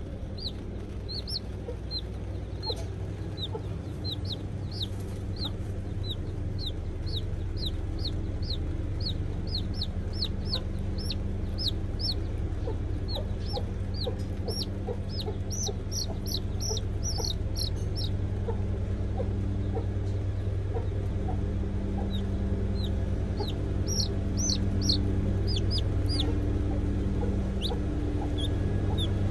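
Baby chick peeping: short, high, falling peeps, two or three a second, that pause for a few seconds past the middle and then start again, over a steady low hum.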